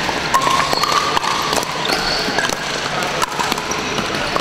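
Pickleball rally in a large echoing hall: sharp pops of paddles hitting the hollow plastic ball, with short sneaker squeaks on the hardwood floor, over the steady din of play on neighbouring courts.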